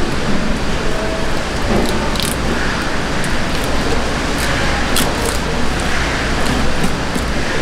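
A steady rushing background noise, with a few faint clicks and scrapes as a knife cuts a yellowtail fillet free along the backbone.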